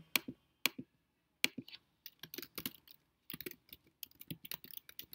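Typing on a computer keyboard: a few separate clicks in the first second and a half, then a quick run of keystrokes from about two seconds in.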